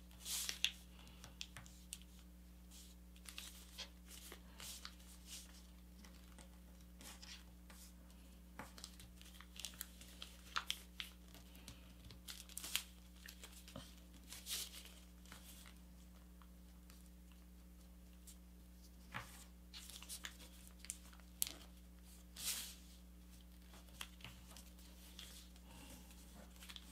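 Sheet of paper being handled and creased while an origami paper airplane is folded by hand: faint, scattered crinkles and rustles at irregular intervals. A low steady hum runs underneath.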